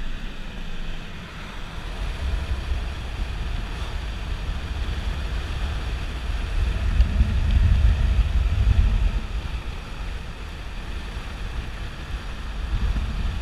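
Wind buffeting the microphone: a low, gusting rumble that swells a little past the middle.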